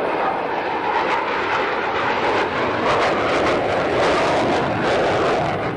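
F-16 Fighting Falcon's jet engine, loud and steady, as the fighter flies past in a banking turn, with a ragged crackle through the middle of the pass.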